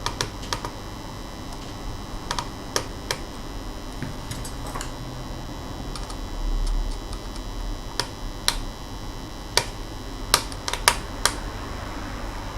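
Irregular sharp clicks and taps from hands working on a laptop's plastic case and parts, over a steady low hum, with a dull low thump about halfway through.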